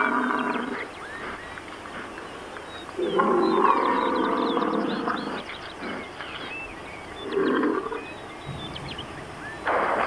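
European bison vocalizing: a long call starting about three seconds in and lasting over two seconds, a short one past the middle, and another beginning at the very end. Faint small bird chirps sound between the calls.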